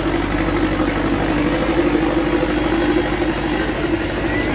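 Sonalika DI 750 tractor's diesel engine running hard under heavy load as it drags a sack-weighted disc harrow through sand, a steady labouring drone with an even low pulse.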